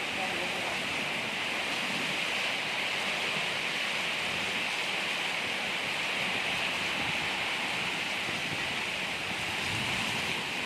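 Heavy rain pouring steadily in a storm: an even, unbroken hiss.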